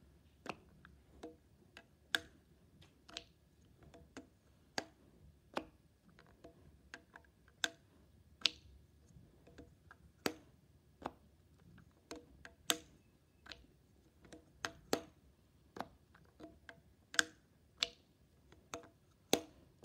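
Homemade LEGO-brick fidget toy squished with the fingers, its plastic bricks giving sharp clicks at an uneven pace of one or two a second.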